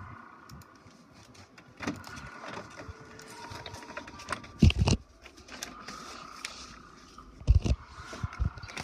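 HP Officejet 4500 inkjet printer printing a page: the print carriage and paper-feed motors whine steadily with small mechanical clicks as the sheet advances. Two loud thumps come about halfway through and near the end.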